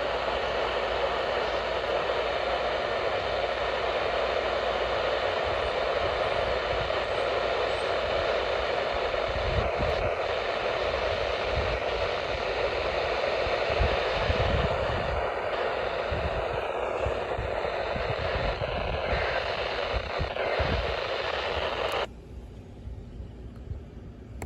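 Radio receiver hissing with steady static on a weak signal. About 22 seconds in the static cuts out abruptly, leaving a much quieter hush as a stronger station signal comes in.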